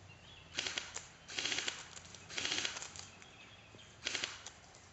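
Battery-powered airsoft M4 rifle firing four short full-auto bursts, each a rapid clatter about half a second long.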